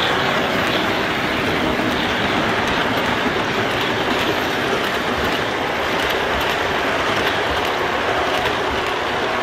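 Model passenger train's wheels and motor running steadily along the track close by, a continuous rolling rumble as the cars pass.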